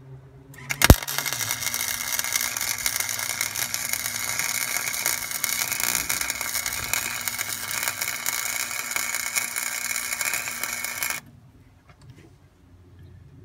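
Electric arc welding on steel: the arc strikes with a sharp pop about a second in, then runs as a steady crackling hiss for about ten seconds and cuts off abruptly.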